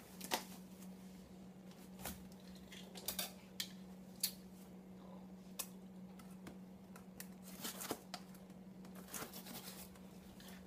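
Cardboard box and packaging being opened and handled: faint, irregular rustles, scrapes and light taps, with a steady low electrical hum underneath.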